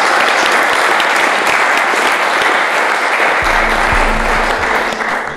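Audience applauding, dense and steady, dying away near the end. About three and a half seconds in, low sustained music comes in underneath.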